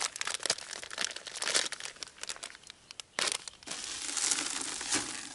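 A plastic groundbait bag crinkling as it is tugged and torn open, in irregular crackling bursts with a short lull and then a sharp rustle about three seconds in.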